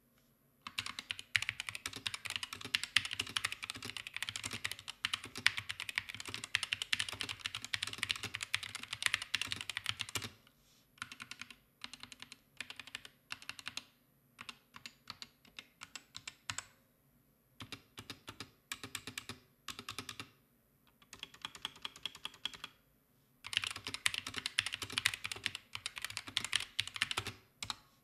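Typing on an HK Gaming GK61 60% keyboard with Gateron Silver optical linear switches and double-shot ABS keycaps: a fast, continuous clatter of keystrokes, which breaks into slower, separate short runs of key presses from about ten seconds in, then turns fast and continuous again near the end.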